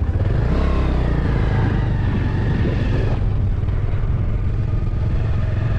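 A two-wheeler's engine running steadily while riding, under a loud low rumble.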